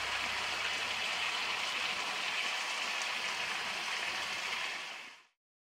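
Pork igado sizzling in the pan: a steady hiss that fades out about five seconds in.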